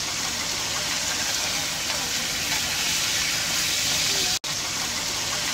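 Sea fish pan-frying in oil: a steady sizzle that breaks off for an instant about four and a half seconds in.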